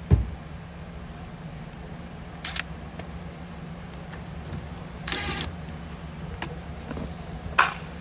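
Handling noise as a screw is fitted into a refrigerator's lower hinge bracket with a cordless drill: a thump right at the start, then a few short rasping clicks, the longest about five seconds in, over a low steady hum.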